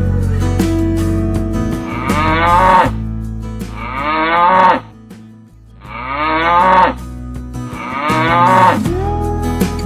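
Cows mooing four times, each moo about a second long and falling in pitch, over acoustic guitar background music.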